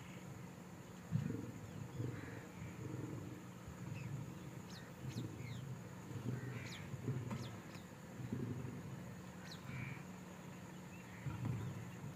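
Lions making low, irregular growls and grunts, with short, high, falling calls from birds circling overhead between about four and ten seconds in.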